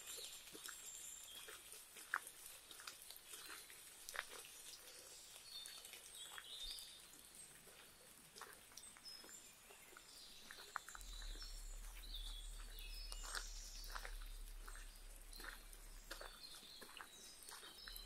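Birds chirping in short scattered phrases over the soft, irregular steps of someone walking on a wet dirt forest path, with a faint hiss in the background.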